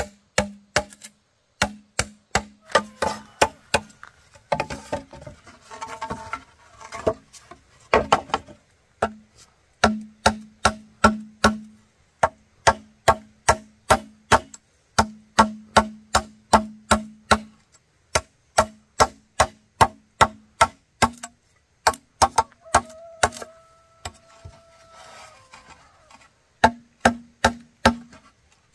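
Bamboo being struck again and again with a blade, about three blows a second in runs with short pauses, each blow with a brief hollow ring. About three-quarters of the way through, a steady two-tone call is held for about three seconds.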